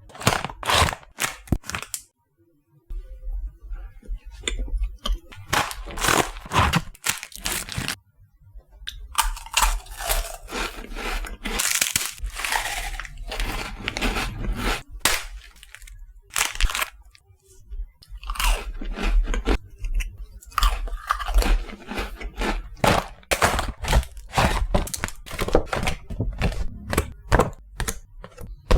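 Oreo chocolate sandwich cookies being bitten and chewed close to the microphone: fast runs of crisp crunches and cracks, with two short pauses.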